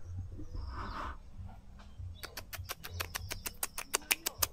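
A bird calling in a rapid, even run of sharp clicking chirps, about seven a second, starting about two seconds in.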